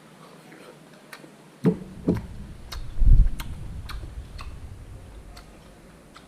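Regular clock-like ticking, about two ticks a second, with a few low thumps and a short low rumble in the middle, loudest about three seconds in.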